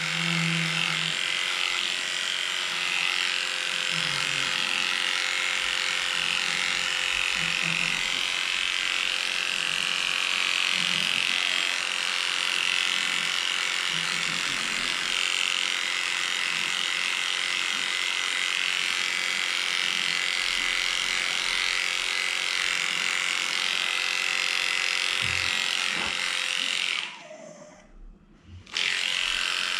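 Electric dog grooming clippers running steadily, shaving a pug's coat. They cut out about 27 seconds in and start again a second and a half later.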